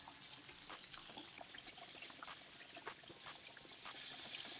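Hot oil sizzling steadily around double-battered vegan chicken cutlets frying in a pan, with frequent small crackles and pops.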